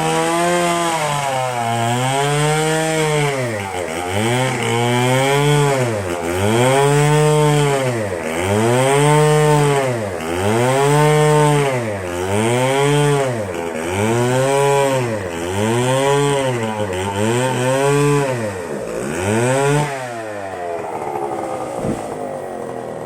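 Stihl MS 720 chainsaw engine revving up and easing off over and over, about one cycle every one and a half to two seconds. About twenty seconds in it drops to a lower, steadier running sound.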